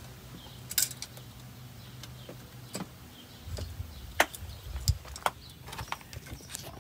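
Pliers clicking and clinking against the steel roller cage of a seized outer wheel bearing as the cage is torn apart to free the rollers. The sharp metallic clicks come at irregular intervals.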